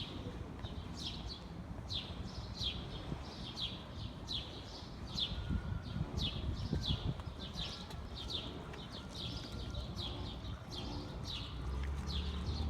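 A small bird chirping over and over, short high chirps that drop in pitch, about two or three a second, over a low background rumble.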